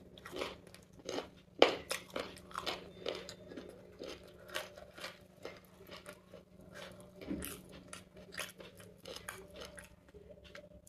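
Close-up chewing and mouth sounds of a person eating chicken biryani: wet smacking with irregular crunchy clicks, about two a second.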